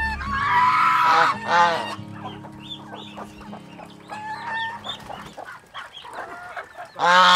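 Farmyard poultry flock of chickens, Muscovy ducks, ducklings and domestic geese calling while they feed, with many short, high calls and clucks. A louder call comes about a second in, and another near the end.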